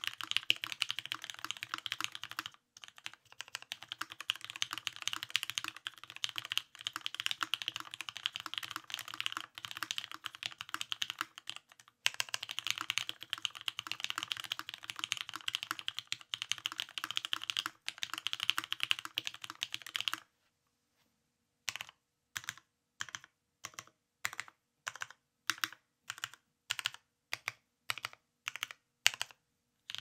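Keycult No.2 custom mechanical keyboard with retooled Cherry MX Black linear switches (spring-swapped to 55 g springs and lubed with Krytox 205g0) on an aluminum plate, typed on quickly and continuously. About 21 seconds in, the typing gives way to single keys pressed one at a time, about two a second.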